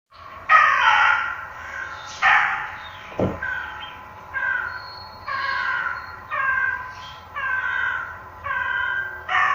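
A series of harsh animal cries, one roughly every second after two louder ones at the start, with a short low falling thud about three seconds in.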